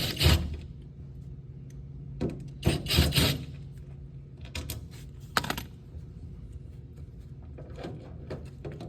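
Sharp metallic clicks and clatter of a hand tool and small screws being worked loose from a front-load washer's door lock, in short clusters every second or two, over a steady low hum.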